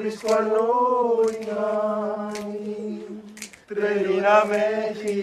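Men's voices singing a Greek dance tune together a cappella, in long held notes, with a short break about three and a half seconds in.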